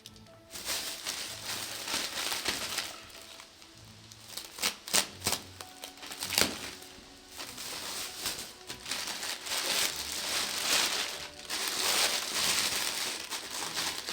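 Crinkling and rustling of packaging being handled, with a few sharp clicks about five and six and a half seconds in, over background music.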